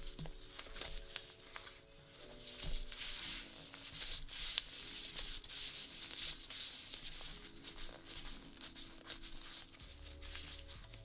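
Crinkling and rubbing of thin plastic disposable gloves as hands fold and roll soft bread dough into a tight ball on a wooden board, under soft background music whose bass comes in near the end.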